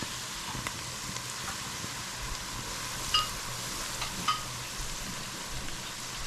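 Onions frying in a pot, sizzling steadily, with two sharp metallic clinks a little past the middle that ring briefly, like a spoon striking the pot.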